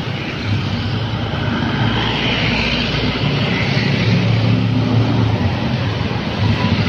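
Road traffic passing close by: motorbikes and cars driving past, a steady mix of engine hum and road noise that swells slightly toward the end.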